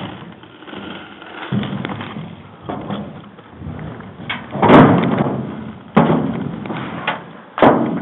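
Heavy thumps close to the microphone, three big ones in the second half, the first the loudest, each fading over about a second, with lighter knocks before them: the body-camera wearer's boots and gear bumping against a steel diamond-plate floor as he shifts and gets up.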